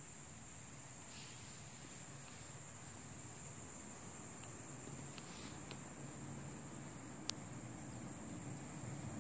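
Crickets chirping in a steady, high-pitched chorus, with a single sharp click about seven seconds in.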